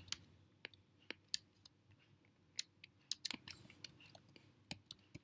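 Faint, irregular computer keyboard keystrokes: a dozen or so short clicks, a few of them bunched together a little past three seconds in.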